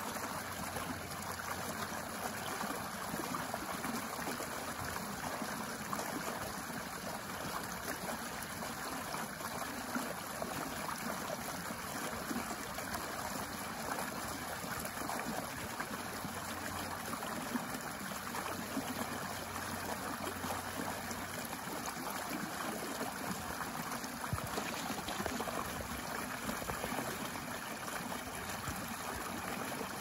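Small shallow stream flowing steadily over a low step of rocks into a pebble-bottomed pool, a continuous splashing and trickling of running water.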